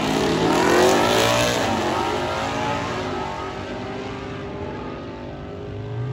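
Twin-turbocharged Ford Mustang GT 5.0 V8 at full throttle on a drag-strip launch. The engine note climbs in pitch through the gears and grows fainter as the car pulls away down the track.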